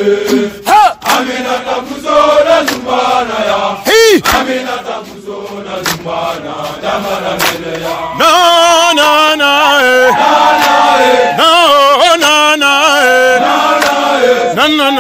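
Voices chanting a military soldiers' song. About eight seconds in, louder sung lines with a wavering pitch take over.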